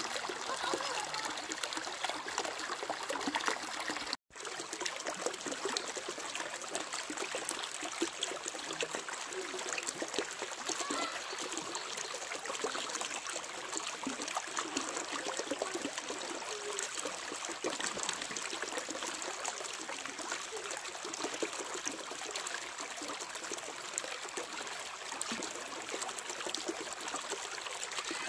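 Shallow stream water trickling steadily over stones, a continuous light splashing with no voices over it. It cuts out briefly about four seconds in.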